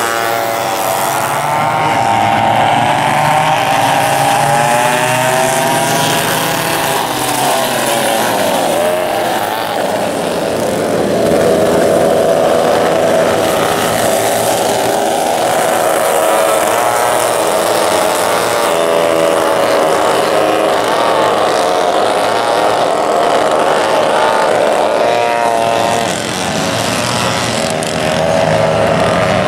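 A pack of vintage rear-engine racing karts, McCulloch two-stroke engines among them, running together at racing speed, several engines at once, their pitch rising and falling as the karts accelerate, lift and pass.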